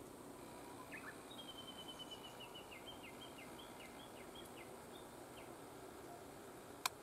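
A small bird singing a run of about fifteen short high notes, starting about a second in and lasting some four seconds, over faint steady outdoor background noise. A single sharp click comes near the end.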